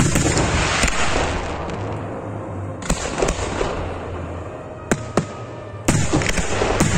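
Professional fireworks display: aerial shells bursting with sharp bangs, about eight of them, over a continuous noisy wash from the display. The loudest bangs come at the very start and about six seconds in.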